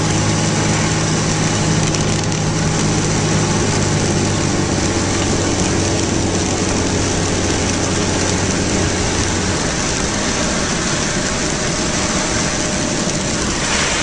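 Car engine running, heard from inside the cabin, under a steady hiss. Its low hum drops away about ten seconds in.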